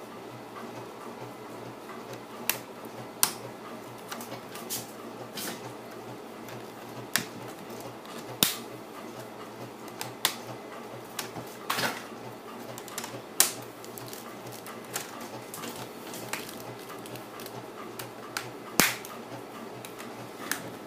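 Plastic screen bezel of a Dell N5110 laptop being pried off by hand, its retaining clips snapping loose in scattered sharp clicks and pops at uneven intervals.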